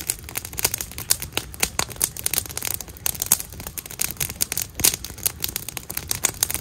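Wood campfire crackling and popping: many sharp, irregular snaps several times a second over a low rumble.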